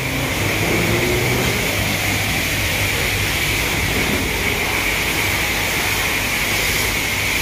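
Self-serve car wash pressure-washer wand spraying water onto a car: a steady hiss of spray with a steady low hum beneath it.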